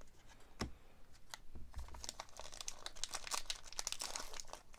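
Foil trading card pack wrapper being crinkled and torn open, with a single click about half a second in and dense rapid crinkling from about two seconds in.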